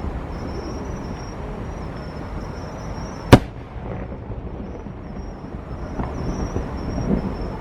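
Fireworks display: a continuous low rumble of bursts, with one sharp, very loud bang a little over three seconds in and softer booms near the end.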